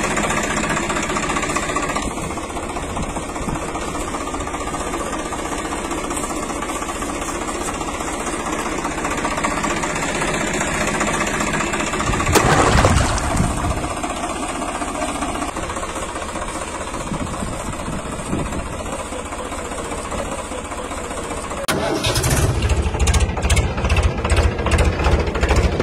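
Tractor engine running steadily, with a brief louder surge about halfway through. Near the end it turns to a louder, fast, regular chugging.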